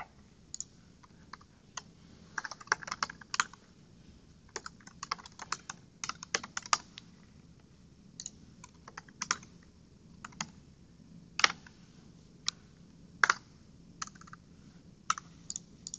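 Typing on a computer keyboard: irregular runs of keystrokes broken by short pauses.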